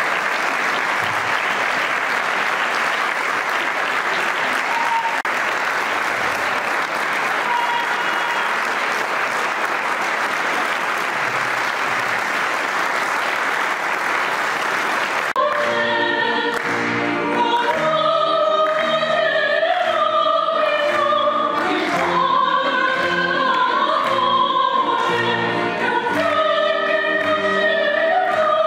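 Audience applauding steadily for about fifteen seconds, then an abrupt switch to a choir singing over a steady beat.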